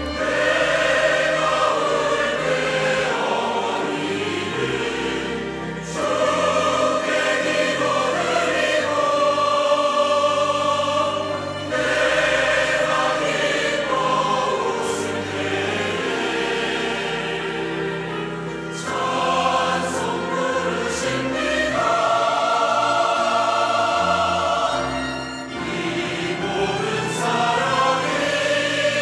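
Large mixed choir singing a Korean hymn in parts, phrase by phrase, over a sustained orchestral accompaniment with low bass lines.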